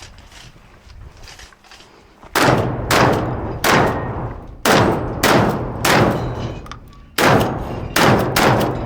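Shotgun fired in quick succession, about eight shots mostly in runs of three roughly half a second apart, each with a short ringing tail. The shooting starts a little over two seconds in.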